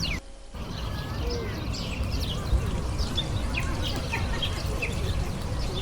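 A flock of small birds chirping: many short, quick downward chirps, over a steady low background rumble.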